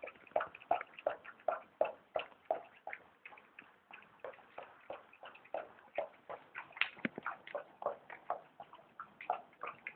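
A cat and then a dog eating from bowls: quick chewing and smacking clicks, about three a second and regular at first, more irregular later, with one louder click about seven seconds in.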